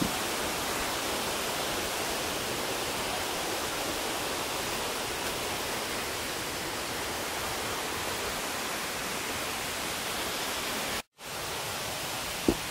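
Steady, even hiss of outdoor background noise that drops out for a moment about eleven seconds in, with a single short tap near the end.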